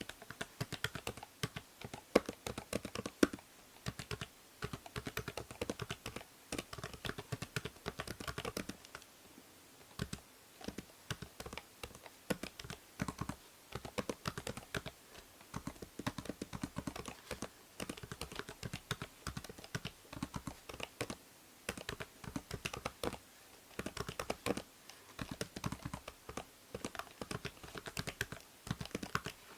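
Typing on a computer keyboard: quick, steady runs of key clicks. There is a brief lull about nine seconds in, and a few keystrokes around two to three seconds in are louder than the rest.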